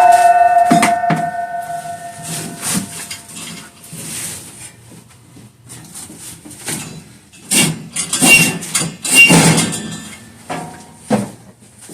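Heavy load being worked onto a steel angle-iron cart: a loud metal clang at the start that rings on for a couple of seconds, then scattered knocks, and a run of scraping and clunking of metal on metal about two-thirds of the way in, with one more knock near the end.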